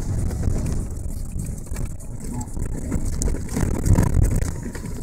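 Vehicle engine and road noise heard from inside the cabin while driving: a steady low rumble.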